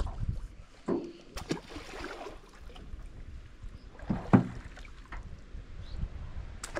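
Water slapping and sloshing against a small boat's hull, with wind on the microphone, a few light knocks and a brief louder sound about four seconds in.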